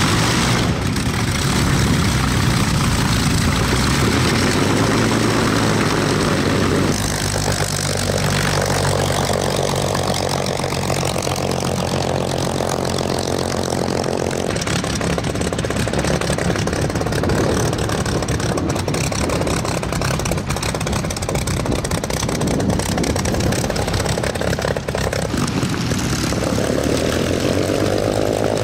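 Supermarine Spitfire's V-12 piston engine running with the propeller turning, at idle to taxiing power. The engine note changes abruptly a few times where clips are joined.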